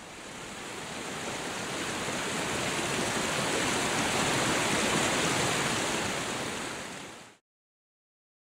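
Rushing white water of a fast river tumbling over rocks, fading in and swelling, then cutting off suddenly about seven seconds in.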